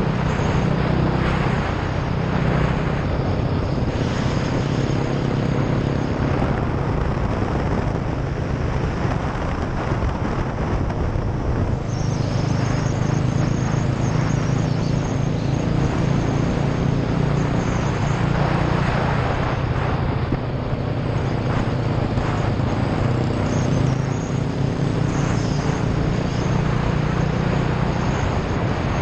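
Motorcycle engine running steadily under way, with an even rushing noise over it; the engine's pitch shifts slightly about twelve seconds in.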